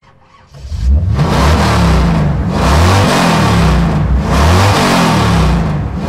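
Holden Commodore's 6.2-litre LS3 V8 revving, its pitch rising and falling again several times. It starts about half a second in and is loud from about a second in.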